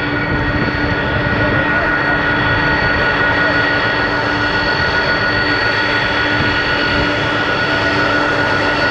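Boeing KC-46 tankers' turbofan engines at taxi power as the jets roll past nose to tail: a steady jet roar with several high whining tones, growing a little louder in the first second or so.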